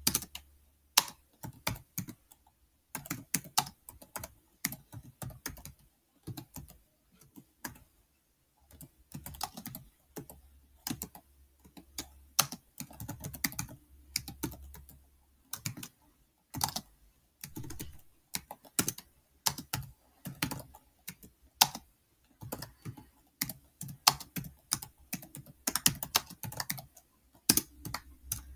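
Computer keyboard being typed on: irregular bursts of key clicks with short pauses between them, as a sentence is entered word by word.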